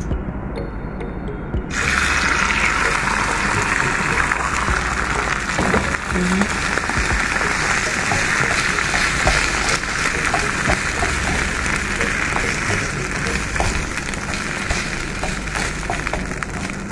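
Eggs hitting hot oil in a frying pan around Arabic flatbread: a sudden loud sizzle starts about two seconds in and goes on as a steady frying hiss with small crackles.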